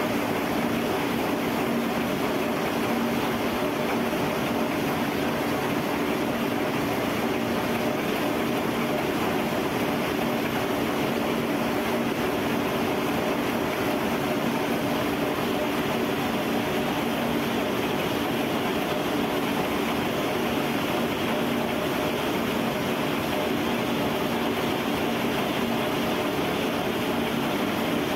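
Steady, even machinery noise from a billet continuous-casting line and its hot billet shear: a constant din with a hum of several steady tones, and no separate cutting strikes standing out.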